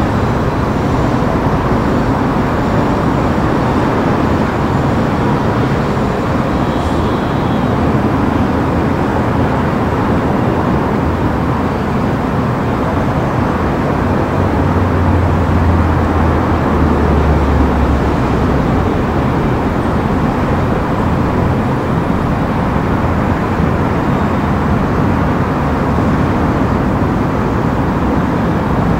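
Steady noise of heavy expressway traffic, with a low hum standing out for a few seconds about halfway through.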